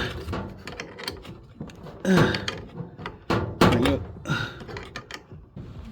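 Scattered metal clicks and knocks as a 7/8 box-end wrench is turned on the motor shaft to tighten a replacement blower wheel inside a clothes dryer.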